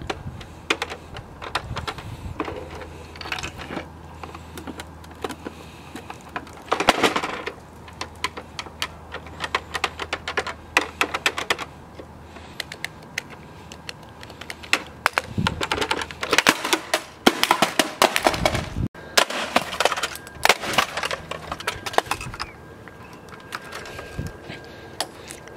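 Plastic toy cash register being worked by hand: its buttons and side lever clicking and rattling in quick irregular runs, busiest in the second half.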